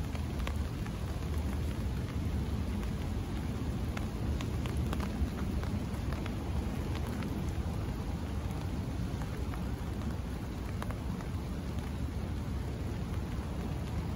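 Scattered raindrops tapping on an umbrella just over the microphone as rain begins, over a steady low rumble.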